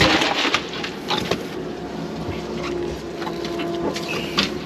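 Fish being put on ice in a boat's fish box: a rattle of ice and fish at the start, then scattered knocks and clatter of handling.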